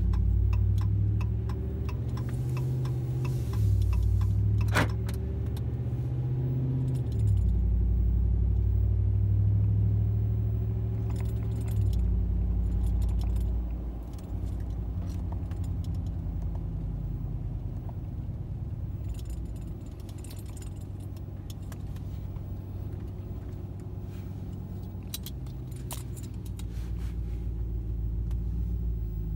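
2017 Ram 1500's 5.7-litre Hemi V8 exhaust through Carven Competitor mufflers, heard inside the cabin while driving: a low rumble and growl. It is louder through the first twelve seconds or so and settles quieter from about fourteen seconds in. Light clicking rattles sound over it now and then.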